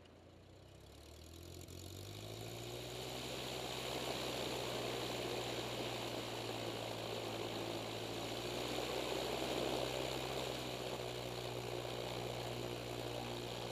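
Light aircraft's piston engine speeding up over the first couple of seconds as power is added, then running steadily with propeller and wind noise.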